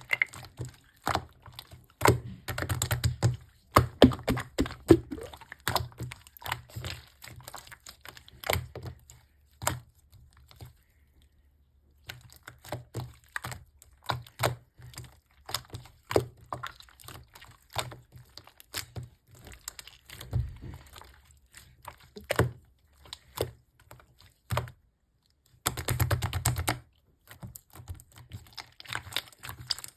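A bubble-filled material being pressed and worked by hand, giving quick, irregular clicks and crackles of tiny air bubbles popping. It stops briefly twice.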